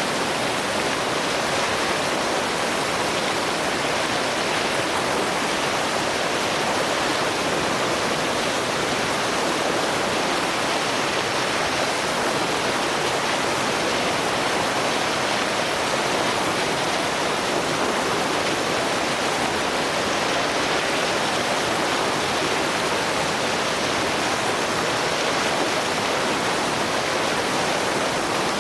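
Steady roar of heavy white water from the River Nile pouring over rapids and falls, an even rushing that does not change.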